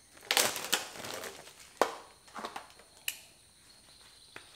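Plastic wrapping on a roll of hardware cloth crinkling and rustling as it is handled, loudest in the first second, with a couple of sharp clicks from the wire roll. It thins out to a few faint ticks.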